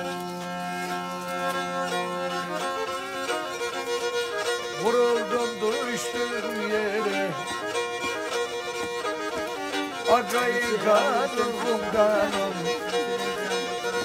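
Black Sea kemençe, a small upright three-string bowed fiddle, playing a folk tune. It opens with a couple of seconds of held notes sounding together, then moves into quick running phrases with slides between notes.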